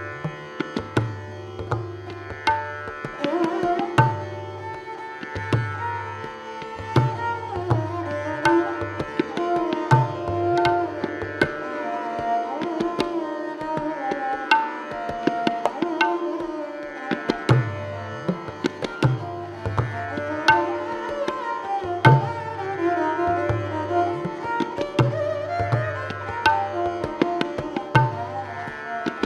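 Taus, the bowed, peacock-shaped Sikh string instrument, playing a sustained, sliding melody, accompanied by tabla: crisp strokes on the smaller drum and frequent deep, ringing strokes on the bass drum.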